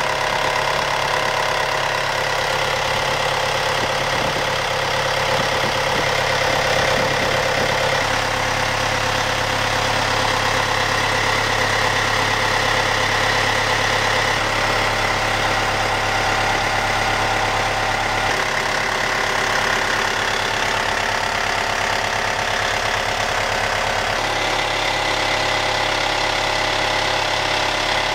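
Yanmar 4JH3-DTZAY four-cylinder turbodiesel marine engine running steadily at idle.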